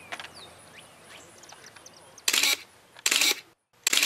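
A camera shutter firing three times in quick succession in the second half, each a short, sharp snap.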